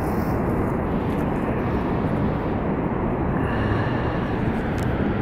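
Steady rushing roar of the Lower Falls of the Yellowstone River, a continuous water noise with no change in level.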